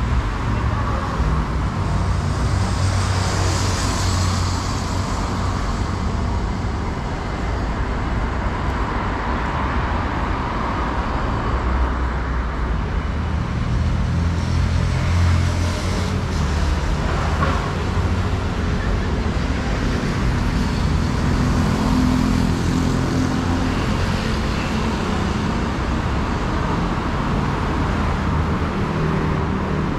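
City road traffic: car and other motor-vehicle engines and tyres running steadily. A louder hiss swells about three to four seconds in as a vehicle passes.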